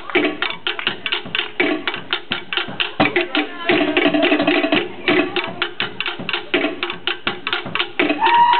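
Live Tahitian drumming: rapid, driving wooden strikes of slit-log drums over deeper drum tones, in a fast even rhythm for the dance.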